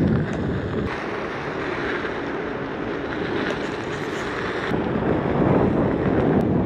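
Wind noise on the microphone mixed with the rolling noise of a Onewheel electric board's single tyre on a dirt road. The noise drops a little about a second in and grows again near five seconds.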